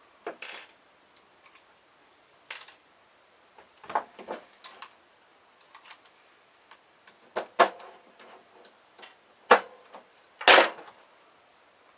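Components being snipped and pried off an air-conditioner circuit board: irregular sharp clicks and snaps of metal and plastic, the loudest about ten and a half seconds in.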